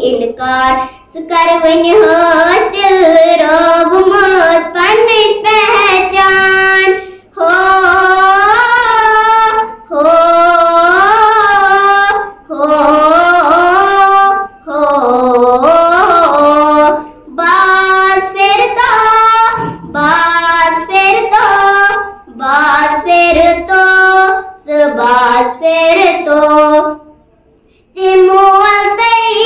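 A girl singing a Kashmiri nazm solo and unaccompanied, in phrases of a few seconds broken by short pauses for breath, with a longer pause near the end.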